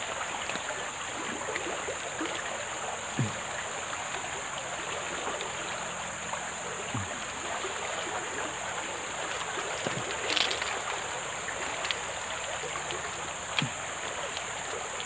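High, fast-flowing muddy river rushing steadily, with a few short knocks and splashes as a hooked fish is landed at the water's edge.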